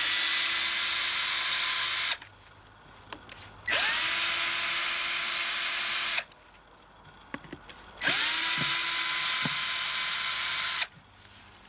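Cordless drill-driver backing the screws out of a wooden birdhouse's front panel in three runs of two to three seconds each. Each run spins up quickly to a steady whine, with light clicks of handling in the short pauses between.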